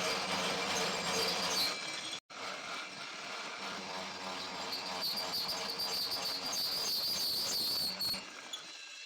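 Steady running noise of workshop machinery, with a low hum and a faint high whine from about five to eight seconds in; the sound cuts off abruptly once, about two seconds in.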